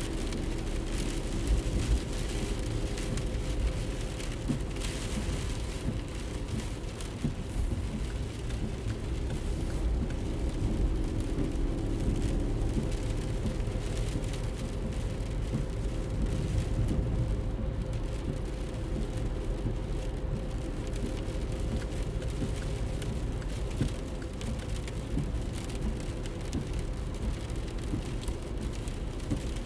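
Car driving, heard from inside the cabin: a steady low rumble of road and engine noise with a faint steady hum, and small irregular knocks over it.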